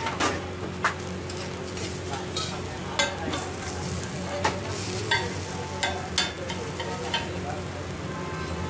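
Metal spatula chopping and scraping on a flat dosa griddle as a rolled dosa is cut into pieces: sharp clacks every second or so, the loudest about three seconds in, over a steady sizzle and hum.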